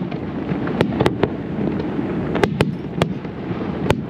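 Aerial fireworks going off: irregular sharp bangs, at times several within a second, over a steady low rumble of bursts and crackle.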